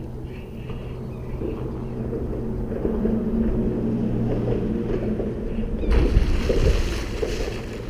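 Hooked alligator gar thrashing at the surface in the shallows: a sudden loud splashing about six seconds in that lasts about two seconds, over a steady low drone.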